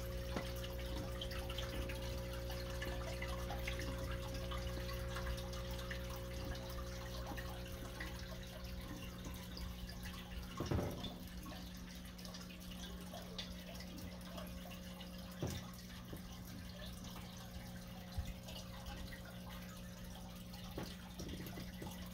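Aquarium filter running: water trickling and splashing over a steady low motor hum. Two soft knocks, one about halfway through and another a few seconds later.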